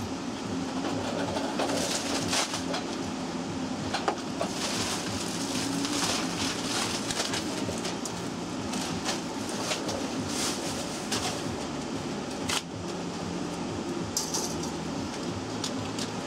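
Plastic shopping bags rustling and crinkling as items are handled and packed into them, in irregular crackles, over a steady low hum.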